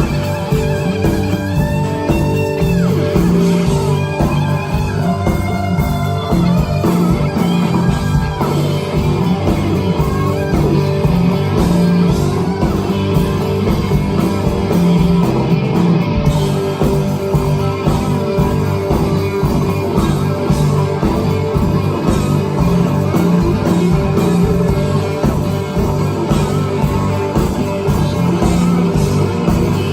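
Live blues-rock band playing an instrumental passage, with electric guitar over bass and a steady drum beat.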